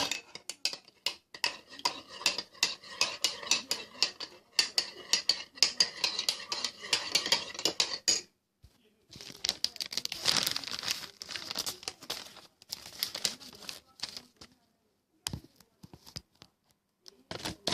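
A spoon clinking quickly and repeatedly against a cup while stirring instant coffee mix, for about eight seconds, with the cup ringing. Then, after a short pause, packaging crinkles and rustles for several seconds, with a few clicks and another rustle near the end.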